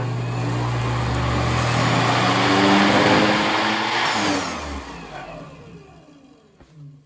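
Treadmill DC motor and flywheel running at full speed and growing louder, then dynamically braked through a 600-watt braking resistor bank: the running noise falls in pitch and fades to a stop over about two seconds.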